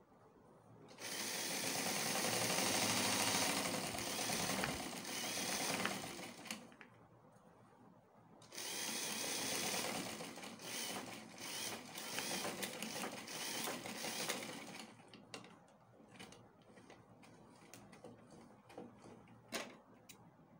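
Electric sewing machine running and stitching, in two runs of about five and six seconds with a short stop between them. Scattered light clicks and handling noises follow once the machine stops.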